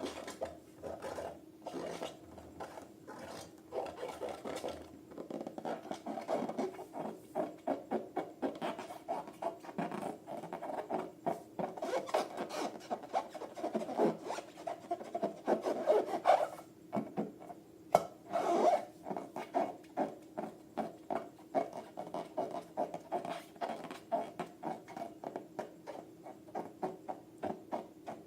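Slime being squeezed and kneaded by hand: a run of short, sticky rubbing strokes, about two to three a second, with one sharp click near the middle.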